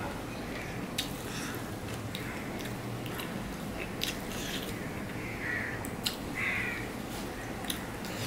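Eating by hand: fingers squishing rice into a thin sour curry on a stainless-steel plate, with a few light clicks against the plate, and soft chewing.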